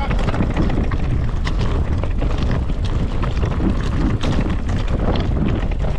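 Mountain bike tyres rolling over a loose-stone trail, with a continuous crunching rumble and many quick clicks and knocks of stones and the bike, mixed with wind rumble on the microphone.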